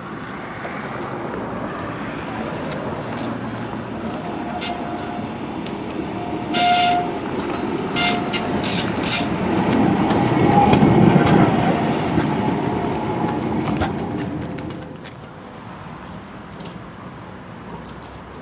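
Škoda 15T ForCity electric tram approaching and passing close by on its rails. Its running noise rises to a peak about ten seconds in, then falls away. Its warning bell gives several short rings as it approaches.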